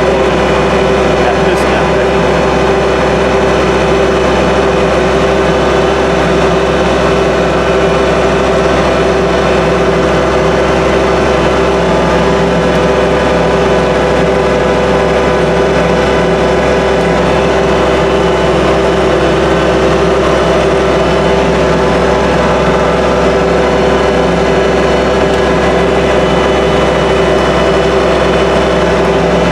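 Kubota compact tractor's diesel engine running steadily at high throttle with its front snowblower working, a constant drone with no change in pitch or level.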